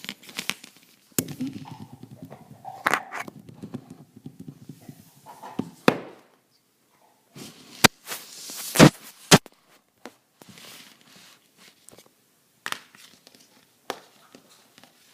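Scattered sharp clicks and knocks with some rustling, the loudest a quick pair of knocks about nine seconds in.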